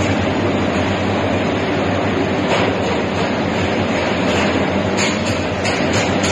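Steady factory machinery noise: a constant hum over a rushing hiss.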